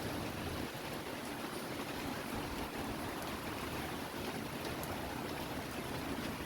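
Steady rain falling, with wind in the trees, as the outer weather of a hurricane arrives: an even hiss with no break.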